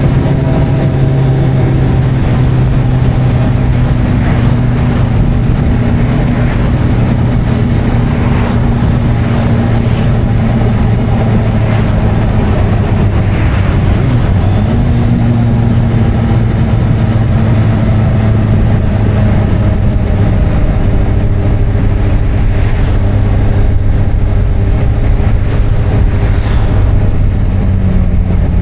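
Kawasaki ZZR1400's inline-four engine running steadily under way at cruising revs, with a brief dip and pick-up in engine pitch about halfway through and another change in pitch near the end, over a constant rush of riding noise.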